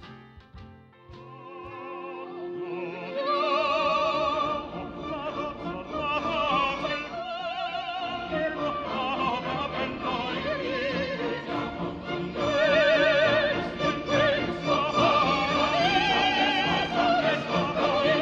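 Operatic singing with heavy vibrato over classical-style accompaniment, fading in over the first few seconds.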